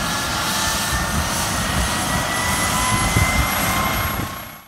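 Aircraft turbine engine running loud and steady: a heavy rumble with thin whines on top that creep slowly up in pitch, fading out near the end.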